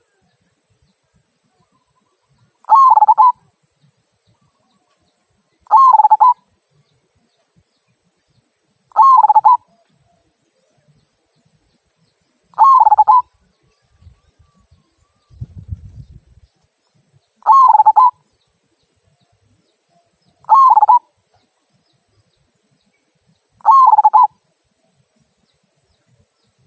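Zebra dove (perkutut) cooing its short 'kung' phrase seven times, one call every three to five seconds.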